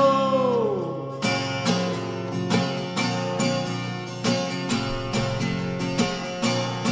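Acoustic guitar strummed in a steady rhythm, about two strokes a second.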